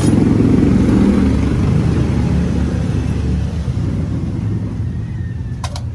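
An engine running steadily with a low rumble that slowly fades, with a couple of short clicks near the end.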